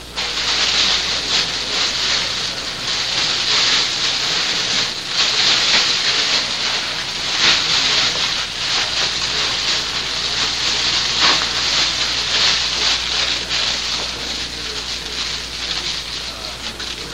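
A crinkly sack rustling and crackling without a break as it is shaken and handled with a cat playing inside it, with irregular louder crackles.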